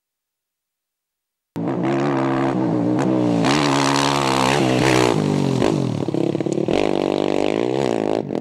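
Rally motorcycle engine revving hard under way, its pitch repeatedly climbing and dropping with throttle and gear changes. It cuts in suddenly about a second and a half in.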